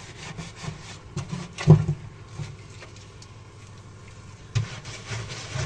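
Half a lemon scrubbed back and forth through a baking-soda paste on a burnt oven floor: a rasping rub in repeated strokes, with one sharp knock about a second and a half in. The scrubbing pauses for a couple of seconds in the middle and starts again near the end.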